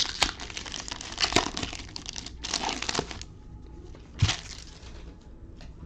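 Plastic trading-card pack wrapper crinkling and crackling as the pack is handled and torn open, busy for about three seconds, with one more short crinkle a little after four seconds.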